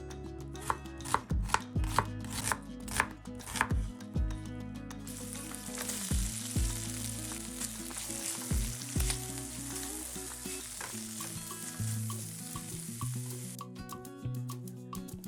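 A knife chopping on a cutting board, a quick series of sharp knocks, followed about five seconds in by a steady sizzle of food frying in a pan that stops shortly before the end.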